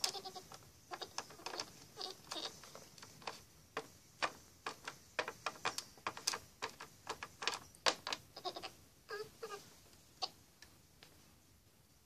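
Light, irregular taps and clicks of a small plastic toy figure being hopped and set down on a hard surface, many in quick uneven succession, dying away near the end.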